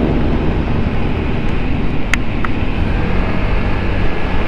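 Steady riding noise from a Vespa Sprint S scooter underway: the low hum of its single-cylinder engine mixed with wind on the microphone. A brief sharp click comes about two seconds in.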